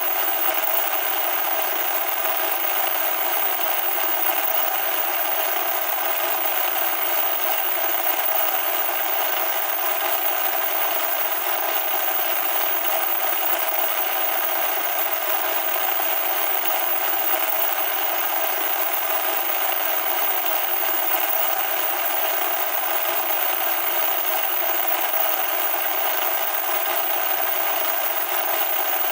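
Loud, steady static: an unbroken hiss with no low end, unchanging throughout.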